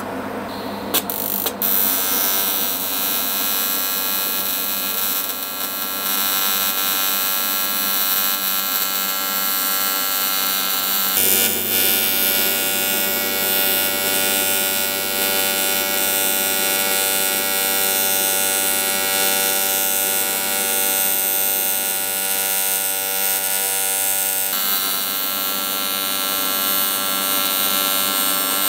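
AC TIG welding arc on a cast aluminium motorcycle crankcase, from an R-Tech TIG261 AC/DC inverter welder. A steady electrical buzz with hiss over it, its tone shifting abruptly near 11 s and again near 25 s.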